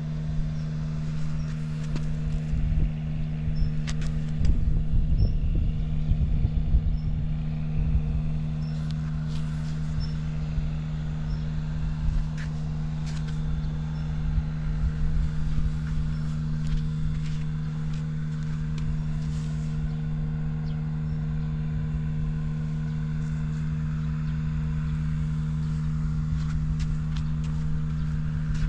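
Honda Ape 50 single-cylinder four-stroke engine, bored up with a Takegawa kit and breathing through a short exhaust pipe, running steadily at idle, with no abnormal noises. It is louder and rougher for a few seconds near the start.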